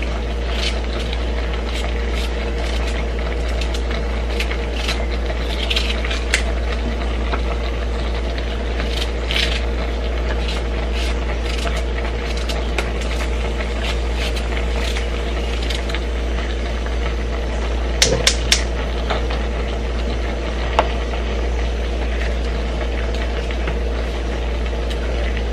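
Steady low hum and hiss of pots cooking on a gas stove, with scattered light clicks as a knife cuts chunks off a white onion held in the hand and drops them into a pot; a few sharper clicks about 18 seconds in.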